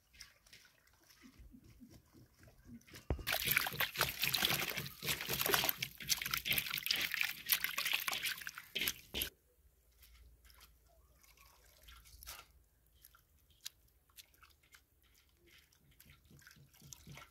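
Hands swishing and rubbing chopped greens in a metal basin of water. The wet splashing is loud from about three seconds in to about nine seconds, then gives way to quieter drips and small splashes as wet handfuls are lifted out.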